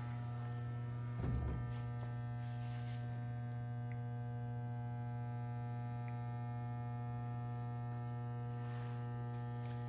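Steady electrical mains hum with many overtones, with a brief low bump about a second in.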